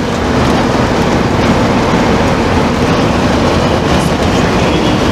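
Loud, steady rumble of a diesel bus driving at road speed, engine and road noise heard from inside the cabin.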